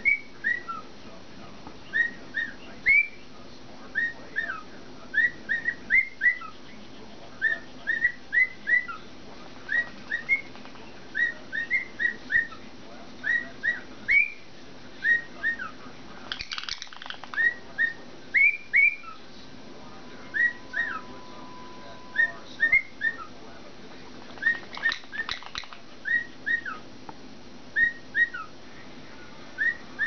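Male cockatiel whistling, a repeated phrase of short notes that swoop up and down, in quick groups of two or three with short pauses between. Twice there is a brief crackly burst among the notes.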